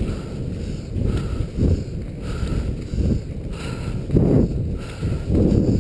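Skate skis and poles swishing and scraping on packed snow in a steady stroke rhythm, a swell about every two-thirds of a second, with wind rumbling on the microphone.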